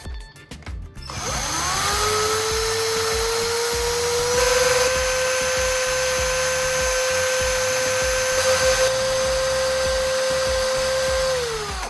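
Small electric motor of a power tool spinning up about a second in, running with a steady high whine, and winding down near the end, grinding a battery's carbon core into black powder.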